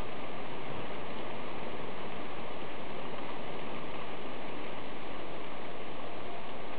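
Heavy rain falling during a thunderstorm: a steady, dense hiss with no distinct thunderclap.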